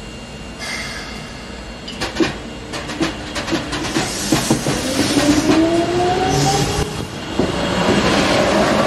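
Keikyu 800 series electric train pulling away from the platform. A burst of hiss comes about half a second in, then wheel clicks, and the traction motors whine, rising in pitch as it accelerates. The whine dips briefly near seven seconds, then returns louder.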